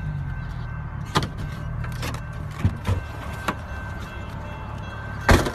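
Vehicle engine idling low and steady, with knocks and rubbing from a hand-held phone being moved around, and a louder thump about five seconds in.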